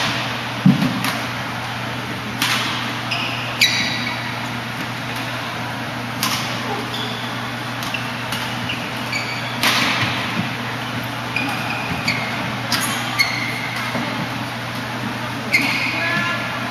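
Badminton rally: sharp cracks of rackets striking the shuttlecock every second or few, with short high squeaks of court shoes on the floor, over a steady low hum.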